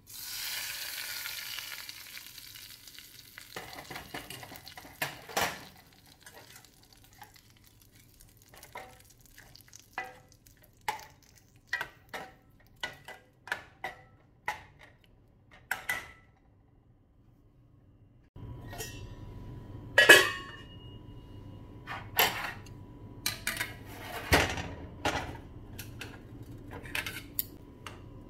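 Hot mustard-seed and curry-leaf tempering hitting a steel pot of colocasia-leaf curry: a sharp sizzle that fades over a few seconds. Then a steel ladle clinks against the pot again and again as the tempering is stirred in, with the sharpest clink about twenty seconds in.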